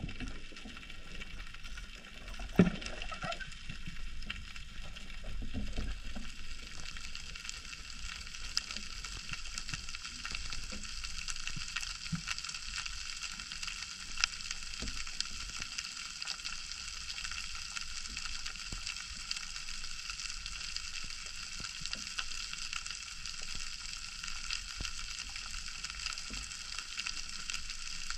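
Steady underwater crackle, a dense fizz of tiny clicks, picked up through an action camera's waterproof housing, with a couple of sharper knocks.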